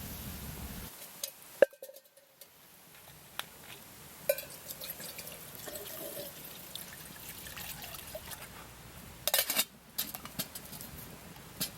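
Campfire crackling: scattered sharp pops over a faint hiss, the loudest about one and a half seconds in and a quick run of pops a little after the middle.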